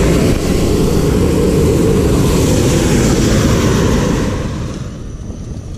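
Hot-air balloon's propane burner firing a long blast, a loud steady rushing roar that starts at once and dies away about four to five seconds in.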